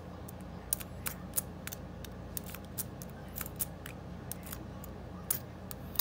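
Small, irregular metal clicks of a hook pick working the pins of a laminated steel padlock's four-pin brass cylinder under a tension wrench, over a steady low hum.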